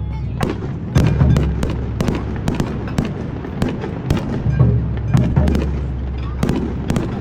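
Aerial fireworks shells bursting overhead: a dense, irregular run of sharp cracks and bangs over a continuous low rumble, with heavier deep booms about a second in, midway and near the end.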